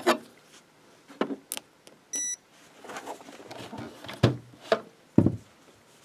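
Clicks and knocks of a steel Clejuso No. 6 figure-eight come-along restraint being handled and set down, with soft rustling in between. There is a short electronic beep from a digital postal scale about two seconds in.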